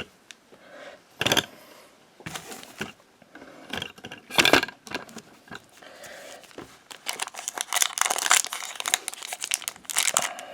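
Foil wrapper of a Pokémon trading card booster pack being torn open and crinkled: a few separate rips, then a longer spell of dense crinkling near the end.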